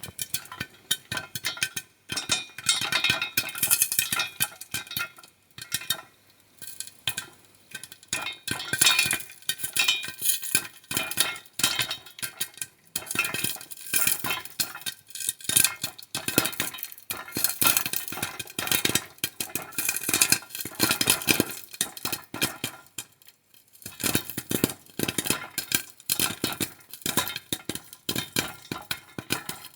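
Popcorn kernels popping in a pan: a dense, irregular run of sharp pops that eases off briefly twice.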